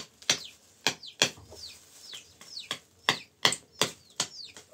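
Sharp knocks repeated at an uneven pace, about two a second, with chicks cheeping in short, high, falling peeps between them.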